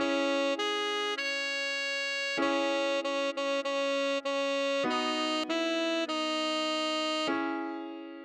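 Tenor saxophone playing a slow melody: a few sustained notes, then a run of short repeated notes on one pitch, then a long held note that fades away near the end.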